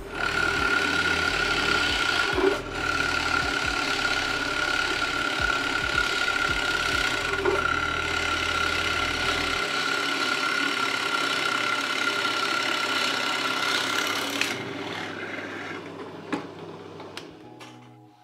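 Benchtop drill press boring a 35 mm Forstner bit through an oak board: a steady motor whine under the rasping of the bit cutting wood, with a brief dip about two and a half seconds in. The cutting stops about fourteen seconds in, and the motor's whine fades away near the end.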